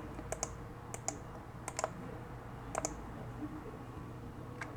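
Quiet clicking at a computer: four quick double clicks spread over the first three seconds, then a single click near the end, over a faint steady hum.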